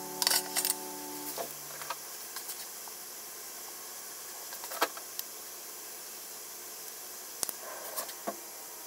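Lotus-root slices sizzling steadily in oil in a frying pan, with a few short sharp clicks and taps from sauce and mayonnaise bottles being handled.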